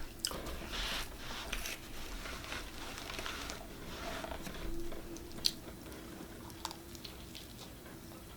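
A person biting and chewing pizza, with irregular soft mouth noises and a few sharp clicks.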